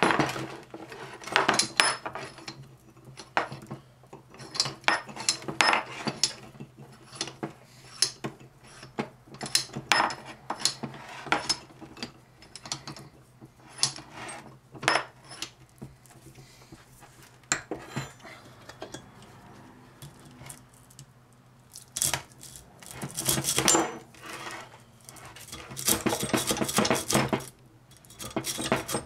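Sharp metallic clinks and knocks as tools and a small electric motor's core are handled and clamped in a bench vise. From about two-thirds of the way in comes a hand hacksaw: runs of rasping strokes as it cuts through the motor's copper-wound core.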